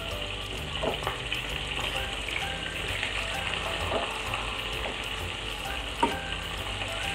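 Chicken pieces frying in oil in a nonstick pan, a steady sizzle, with metal tongs clinking a few times as the pieces are turned.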